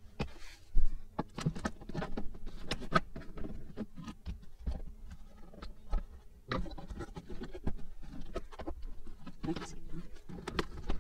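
Plastic interior trim of a Toyota Land Cruiser 100's rear liftgate being pried and worked loose by hand: irregular clicks, taps and scraping of the panel and its clips, with a sharper snap about a second in and another a little past the middle.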